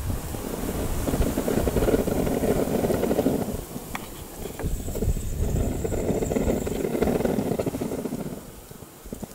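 Wind buffeting the microphone in two long gusts, a low rumble that swells and fades, with a couple of faint clicks between the gusts.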